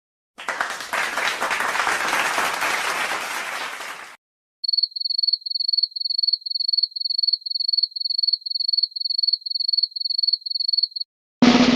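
Applause: a crowd clapping for about four seconds, stopping abruptly. Then, after a short gap, a cricket chirping steadily on one high note, about two and a half chirps a second, cutting off just before the end.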